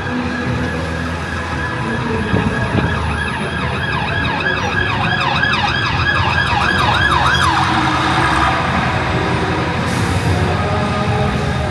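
Emergency-vehicle siren on a fast yelp, a rapid rising and falling tone about three times a second that comes in for a few seconds mid-way, over steady city street traffic noise.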